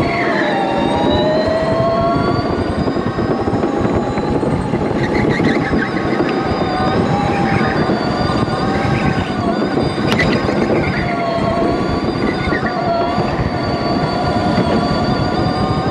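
Electric go-kart motor whining, its pitch rising and falling with speed, over dense tyre and rushing noise. There is a single sharp click about ten seconds in.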